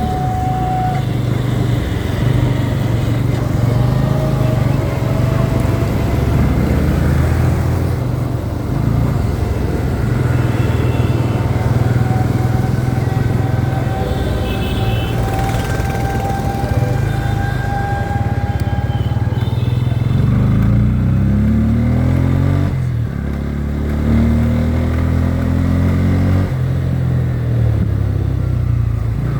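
Motorcycle engine running under way. About two-thirds of the way through its pitch rises twice as it accelerates through the gears, with a steady hiss of wind and road behind it.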